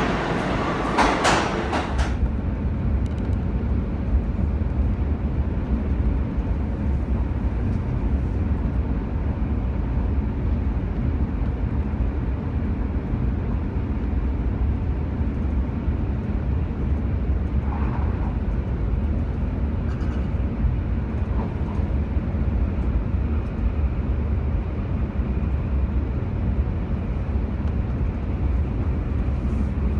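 Steady low rumble of a moving vehicle, after a short burst of louder noise in the first two seconds.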